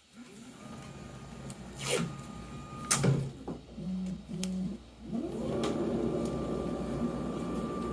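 Stepper motors of a V1 Engineering CNC router driving the gantry on fast rapid moves. A steady whine runs as the carriage traverses, with two sharp knocks around two and three seconds in. Two short low hums follow as the V-bit plunges to mark a hole and lifts. Then a whine rises in pitch as the gantry speeds up into a long fast move and holds steady.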